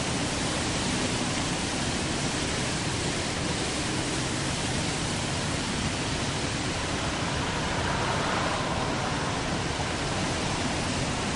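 Steady rushing noise of a storm, heavy rain with wind, swelling slightly about eight seconds in.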